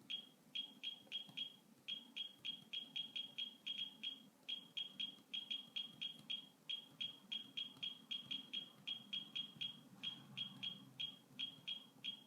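Keystroke beeps from typing on a Brookstone laser-projection virtual keyboard: short, high beeps all at the same pitch, one per key press, coming in an uneven typing rhythm of about three to four a second, with a few brief pauses between bursts.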